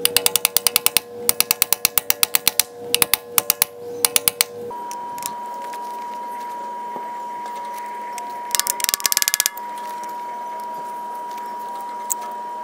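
Socket wrench ratchet clicking in quick runs as the handle is swung back and forth on a seized bolt that is not turning. There is a long run of clicks, then a shorter one near the end.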